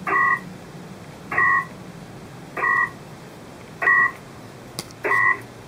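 Pactor data signal from an SSB radio: short two-tone beeping bursts repeating regularly, about one every 1.25 seconds, as the Pactor II modem and radio exchange email data.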